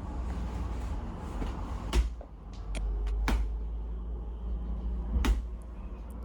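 Three sharp knocks, about a second or two apart, with a few fainter clicks between them, from a hands-on chiropractic treatment, over a low steady hum.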